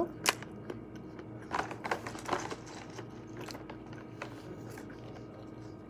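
Light clicks and crackles of fingers picking at and peeling a small snack, with some chewing, over a faint steady hum.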